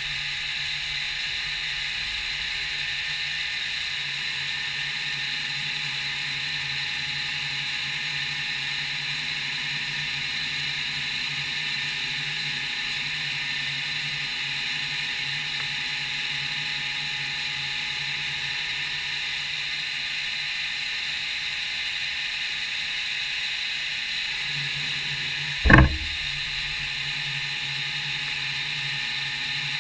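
CNC milling machine running steadily at work, a constant hum with a hiss over it. A single sharp knock stands out near the end.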